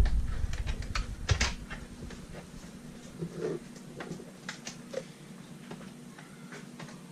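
Scattered light clicks and taps of plastic vacuum-cleaner parts being handled, a few sharper ones in the first second and a half, over a faint steady hum.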